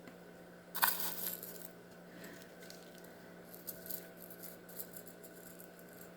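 Small pieces of crushed mirror glass clinking and scraping as they are spooned and pushed into place, with a short clattering rattle about a second in and scattered light clicks after.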